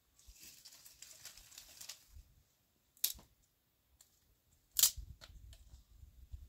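A soft rustle for about two seconds, then two sharp clicks nearly two seconds apart, the second followed by a few fainter ticks.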